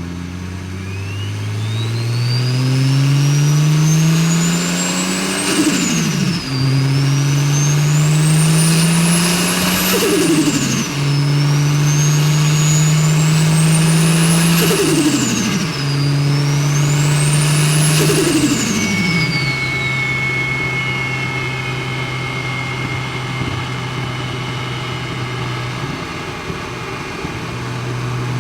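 BMW N54 inline-six with a large single turbo pulling hard through the gears: engine note and a high turbo whistle climb together, then drop at each of four upshifts, with a brief turbo flutter at the shifts. After the last shift it cruises at steady revs.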